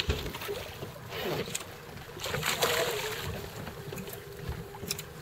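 Water splashing as a hooked tripletail thrashes at the surface beside the boat, in two rushes during the first three seconds, with a faint steady hum in the background from about halfway.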